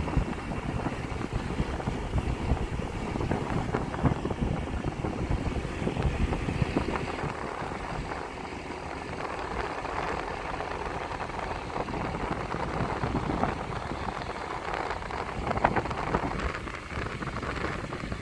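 Rumble and wind noise from a moving vehicle, with wind buffeting the microphone.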